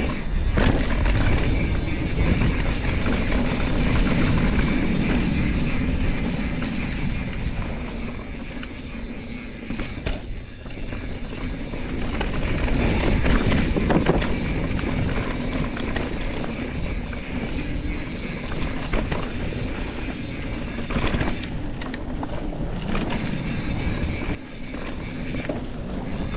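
Mountain bike rolling fast down a dirt trail: a steady rumble of tyres on dirt and the rattle of the bike over bumps, swelling and easing with the terrain, with an occasional knock.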